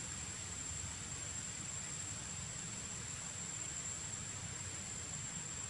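Steady, even hiss of background noise with a thin, constant high-pitched whine over it and a faint low rumble; no distinct events.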